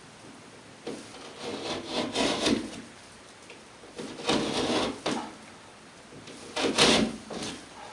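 Razor (utility) knife cutting into drywall in repeated passes along a marked line, deepening the score to cut through the board. There are four cutting strokes, each about a second long, with short pauses between.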